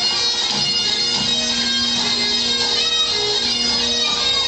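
Highland bagpipes playing a tune over their steady drones.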